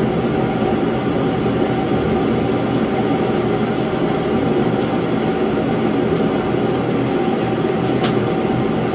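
Portable propane shop heater running: a steady, even noise with a faint constant hum. A light click comes near the end.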